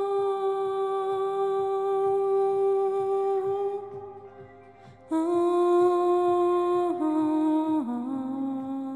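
Background music: a slow melody of long held notes over a faint soft pulse. It fades away about halfway through, then comes back in on a lower note that steps down twice.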